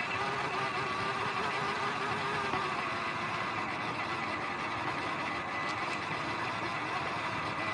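Traxxas TRX-4M RC crawler driving along a dirt trail, heard from a camera mounted on the car: the steady whine of its small electric motor and geared drivetrain, wavering in pitch with the throttle, over the noise of the tyres on dirt and grass.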